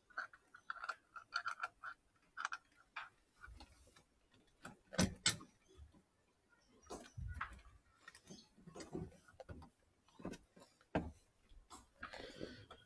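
Irregular small clicks and taps, with a few louder knocks about five and eleven seconds in: hands fitting and tightening a thread-taped part on a semi-automatic washing machine.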